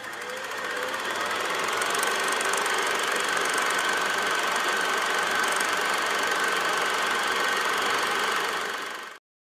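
Old film projector whirring and rattling, spinning up at the start with a slight rise in pitch, then running steadily before cutting off abruptly near the end.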